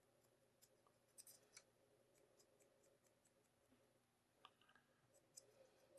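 Near silence, broken by a few faint scratches and ticks of a brush drybrushing paint onto a plastic miniature, in small clusters about a second in and again between four and a half and five and a half seconds in.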